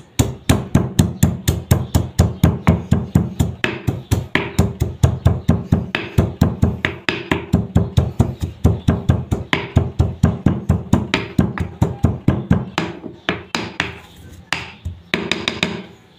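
Stone pestle pounding walnut kernels and cashews in a stone mortar: quick, steady strikes about five a second, each with a short ring, slowing and stopping near the end.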